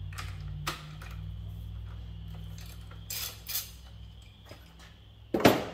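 Metal hand tools clinking against battery terminals and hardware as a wrench is set to the cable connections: a few scattered clinks, a pair about three seconds in, and the loudest clank near the end.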